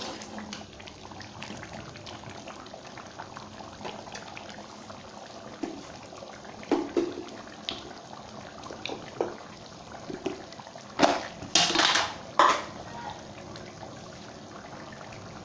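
Chicken gravy boiling in a pan on the stove, with scattered soft bubbling pops. About eleven seconds in come three short, louder bursts of noise.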